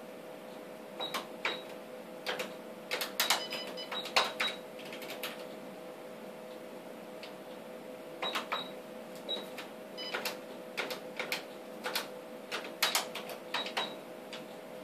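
Ultrasound machine console keys being pressed in quick clusters, clicking with short high beeps, over a steady hum.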